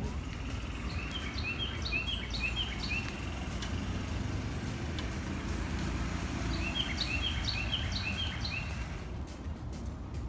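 A bird calling in runs of short, quick chirps, about four a second: one run near the start and another about six seconds in. Under it is a steady low rumble of background noise.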